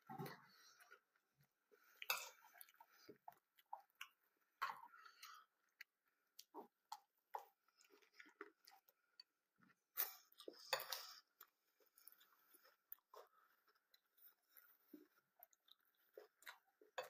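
Cornflakes being chewed: irregular crunching, with louder bouts of crunching about two seconds in and again around ten seconds in.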